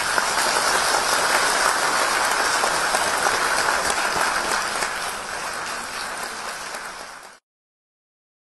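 Audience applauding, the clapping fading a little and then cutting off abruptly about seven seconds in.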